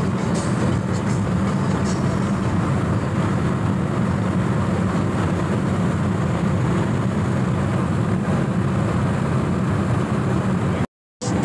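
Cabin noise of a Toyota Corolla Altis 1.8 automatic cruising at about 140 km/h: a steady low drone of engine and road noise heard from inside the car. It cuts out for a moment near the end.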